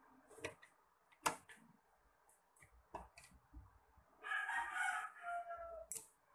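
A few sharp clicks and taps from tools and parts being handled on the workbench. In the second half a rooster crows once, for about a second and a half, ending on a falling note.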